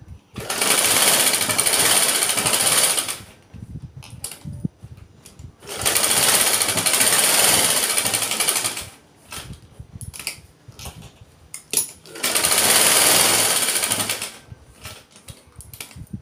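Sewing machine stitching through doubled cotton fabric in three runs of a few seconds each, with short pauses between them filled with clicks and fabric handling.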